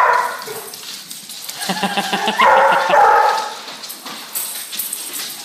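A dog barking: a loud burst right at the start and a longer run of barks from about two to three seconds in.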